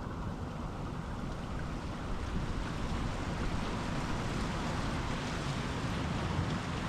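Ocean surf: waves washing in as a steady rushing wash that swells about two seconds in.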